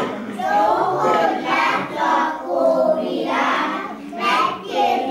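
A group of young children singing a song together, with held notes.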